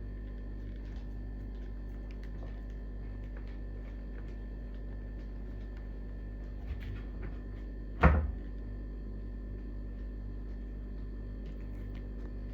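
A small cabinet door banged by a cat: one loud thunk about eight seconds in, with a faint click shortly before it, over a steady low hum.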